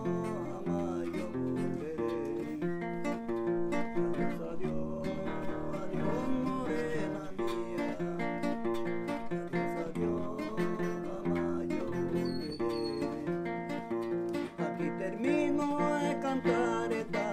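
Acoustic guitar playing an instrumental passage of a song: a picked melody over plucked bass notes and chords.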